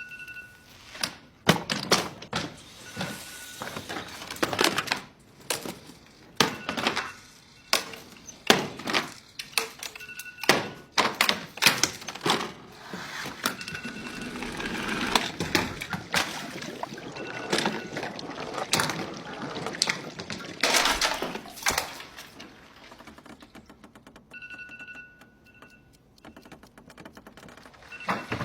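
An electronic alarm clock's beep sounds in short bursts over and over, with a quick run of beeps near the end. Between and over the beeps come many thuds and knocks, with some breaking sounds.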